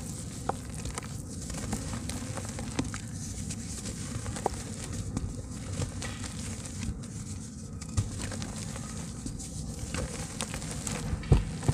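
Soft red dirt from a handmade slab crumbled by hand, falling as fine grains and small lumps into muddy water: a steady pattering and crackling with scattered small ticks and a louder thud near the end.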